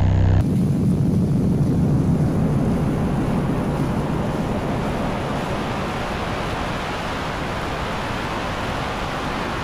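Music cuts off about half a second in and a loud, steady rush of noise takes over, like wind or static, deepest in the first couple of seconds. A faint high-pitched whine runs through it.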